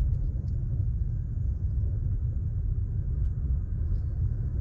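Low, steady rumble of a car driving over a snow-packed road, heard from inside the cabin, with a few faint ticks.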